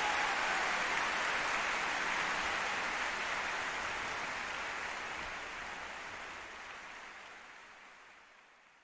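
Audience applause, a dense even clapping that fades out gradually to silence.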